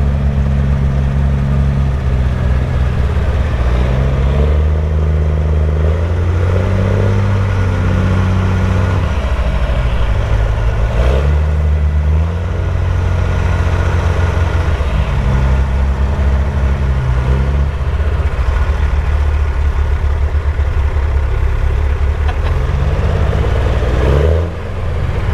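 Heavy truck's engine working hard to climb out up a slope, its revs rising and falling several times.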